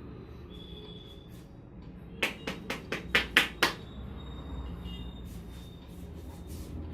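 A quick run of about seven sharp hand slaps on the head, Indian head massage percussion, lasting about a second and a half from a little past two seconds in. Under it runs a steady low background rumble.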